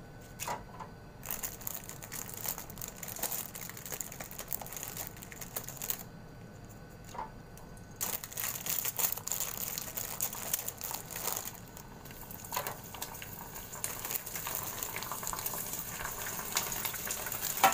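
Hot oil in a deep fryer sizzling and crackling as a batch of prawn crackers fries and puffs up. The crackling starts about a second in, drops out briefly around six seconds in, then comes back.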